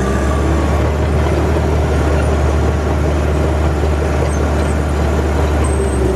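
Caterpillar D5 crawler bulldozer's diesel engine running steadily under load, a loud, even low drone with no change in pitch.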